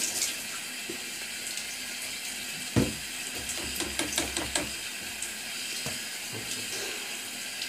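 Tap water running into a bathroom sink while hands are washed under it, as a steady hiss. There is a single thump about a third of the way in, and a few light clicks soon after.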